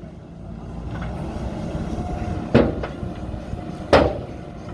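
A heavy machine's engine running steadily, with two sharp knocks, one about halfway through and one near the end.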